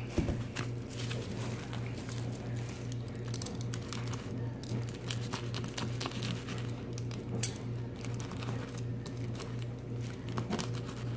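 Irregular crinkling, scraping and small clicks of paper and plastic lining being cut and pulled from the openings of a hollow, hardened paper clay pumpkin shell, over a steady low hum.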